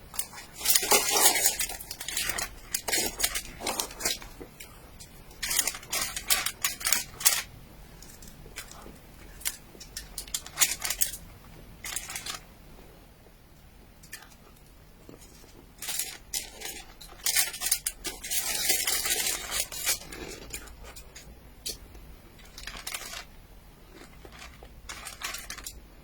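Clicks, scrapes and crinkles of cutlery and plastic food packaging being handled while a cake is cut into, in bunched bursts with quieter stretches between.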